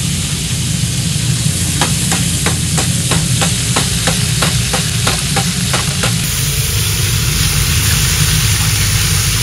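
Flatfish frying in hot oil in a cast-iron pan over a gas burner: a steady sizzle with a low hum beneath. Through the middle it carries a run of quick, evenly spaced pops, about three a second.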